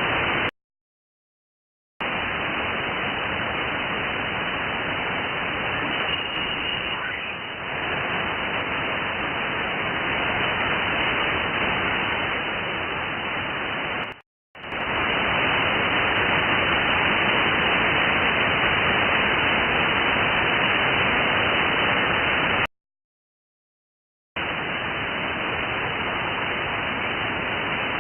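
Radio receiver's audio from an SDR tuned to a band with no station: a steady hiss of static, cut off above about 3 kHz by the receive filter. It drops out to silence for about a second and a half twice, and for a moment once near the middle.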